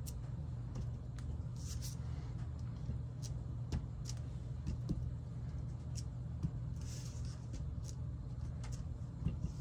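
A rubber stamp being inked and pressed onto cardstock: scattered faint taps and a couple of brief paper rustles, over a steady low hum.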